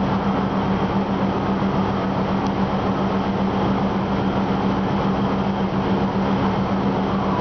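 Diesel passenger train standing at a station platform, its engines idling with a steady, even hum.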